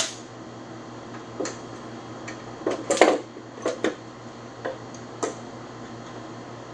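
Irregular metallic clinks and knocks of hand tools on old truck door and cab parts being taken apart, the loudest cluster about three seconds in, over a steady low hum.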